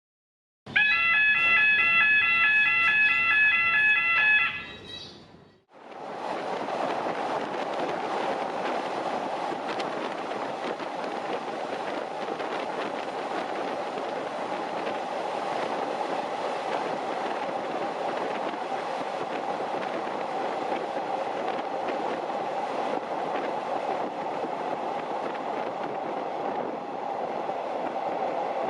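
A loud electronic pattern of several high pulsing tones for about four seconds, fading out, then the steady running noise of a long-distance diesel passenger train rolling along the track.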